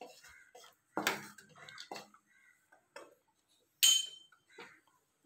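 Wooden spatula stirring cashews frying in ghee in a nonstick pan: scattered light taps and scrapes. Two sharper knocks stand out, about a second in and near four seconds in, the second with a brief metallic ring.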